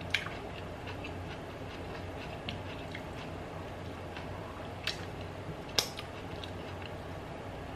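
Soft clicks and taps of a large yellow sweet pepper being dipped into and scooped through cottage cheese and mustard on a plate, over a steady low hum. Three sharper clicks stand out: one at the start and two about five and six seconds in.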